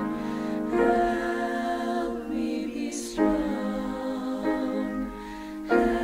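Vocal trio singing a slow, tender ballad in held notes with accompaniment, new phrases entering about a second in, about three seconds in and near the end.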